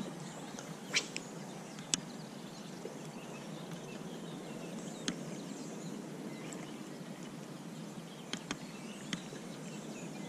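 Quiet outdoor ambience at the water's edge: a steady faint hiss with about half a dozen short, sharp ticks scattered through it.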